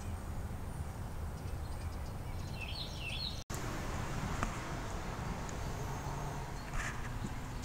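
Steady outdoor background noise with a small bird chirping a few quick notes about three seconds in. The sound drops out for an instant just after, where two clips are joined.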